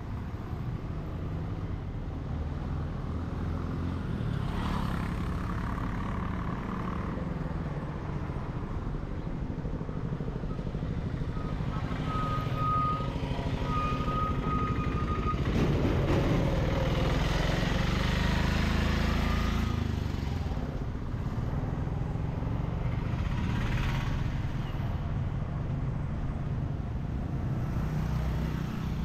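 Roadside traffic: a vehicle engine runs and grows loudest a little past the middle as a small white truck passes close by. Two short high beeps sound shortly before it is loudest.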